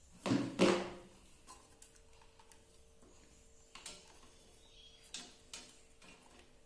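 Handling of a sewing-machine motor's foot pedal and its cable: two louder knocks in the first second, then a few scattered light clicks, over a faint steady hum.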